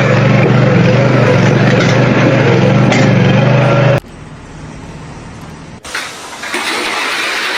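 A motor running steadily with a low hum, cut off abruptly about four seconds in. Quieter noise follows, then a louder rushing noise near the end.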